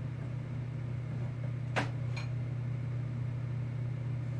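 Steady low background hum, with a sharp click a little under two seconds in and a fainter click just after.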